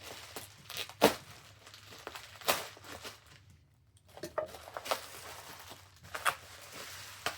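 Packaging being torn and crinkled by hand: a handful of short, sharp rips and rustles, the loudest about a second in and again about two and a half seconds in.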